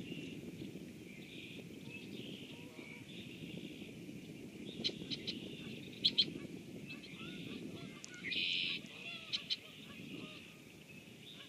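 Steady rain falling on a pond, with scattered short bird calls over it; the loudest is a half-second call about eight seconds in.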